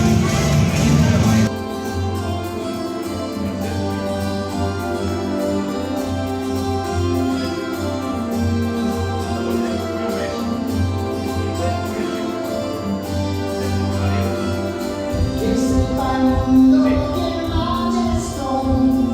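Background music with singing: a sustained melodic song over a steady bass, the arrangement shifting about a second and a half in and again near the end.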